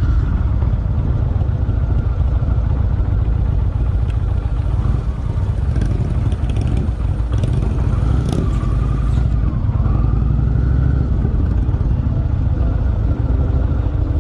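Indian Springfield Dark Horse being ridden at road speed, heard mostly as heavy, steady wind rumble on the microphone over the motorcycle's running.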